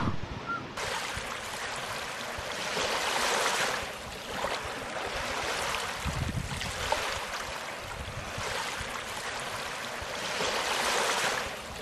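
Sea waves washing onto a rocky shore, a steady rush of surf that swells and falls every few seconds.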